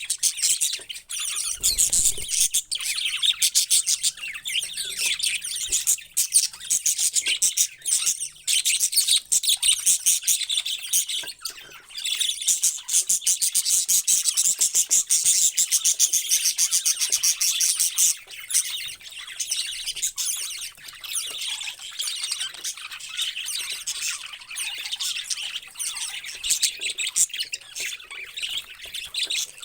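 Parrots chattering and squawking in a dense, continuous stream of rapid high calls, busiest for several seconds around the middle.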